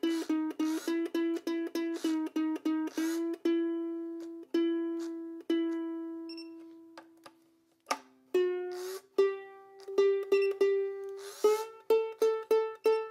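Aiersi soprano ukulele being tuned by ear to a clip-on tuner: one open string plucked again and again, about three times a second at first, then left to ring, its pitch creeping upward as the tuning peg is turned. About eight seconds in, a higher string is plucked repeatedly and brought up in pitch the same way. The new Super Nylgut strings are being raised to pitch for the first time.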